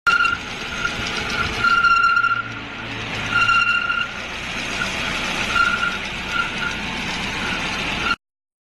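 Nissan GA16DE 1.6 L four-cylinder engine running, with a high squeal that comes and goes in irregular short spells. This is the noise of a crankshaft pulley whose rubber damper layer has come unbonded.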